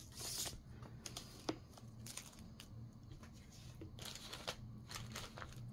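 Faint rustling and a few light ticks as cross-stitch kit materials are handled, over a low steady hum.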